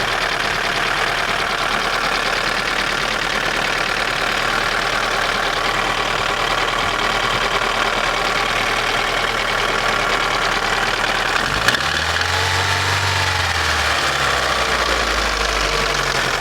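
Daewoo Nexia N100's 1.5-litre eight-valve four-cylinder engine idling with a steady knock that is still there with new hydraulic lifters fitted; the owner does not know its cause. A sharp click sounds about twelve seconds in.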